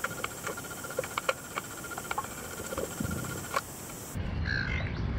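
Underwater ambience picked up by an action camera in its housing: scattered sharp clicks and crackles over a faint steady tone and hiss. About four seconds in, a louder, fuller sound with a low rumble and short higher notes takes over.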